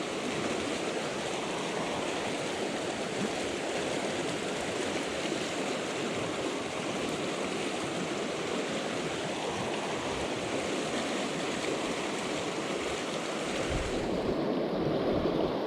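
Mountain river water rushing and flowing steadily.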